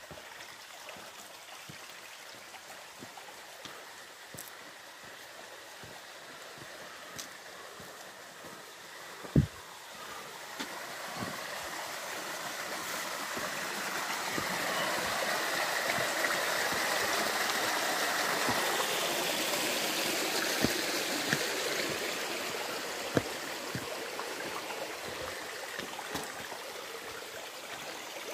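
Small stream flowing over rocks in a steady rush that swells through the middle and eases off toward the end. Scattered light knocks, with one sharp thump about nine seconds in.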